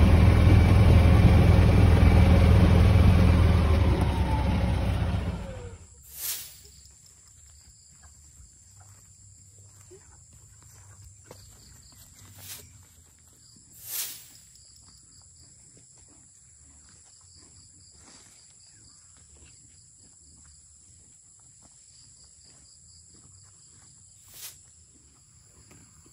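Loud rushing, rumbling noise that cuts off suddenly about five seconds in. After it comes faint rural outdoor ambience: a steady high insect drone with a few brief soft knocks.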